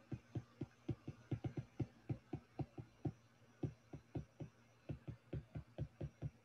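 A stylus tapping and scraping on a tablet screen during handwriting: a quick, irregular series of soft knocks, about four or five a second, over a faint steady hum.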